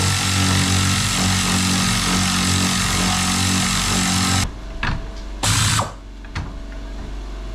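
Impact wrench running steadily on suspension fasteners, cutting off suddenly about four and a half seconds in, then a second short burst about a second later.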